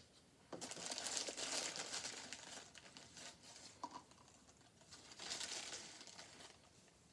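Plastic bag of mini marshmallows crinkling as a hand scoops marshmallows out of it, in two bouts: a longer one starting about half a second in and a shorter one around the fifth second.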